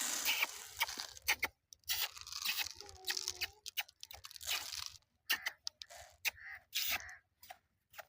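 Cardboard being cut and torn: short, irregular bursts of crunching and tearing, broken by abrupt gaps.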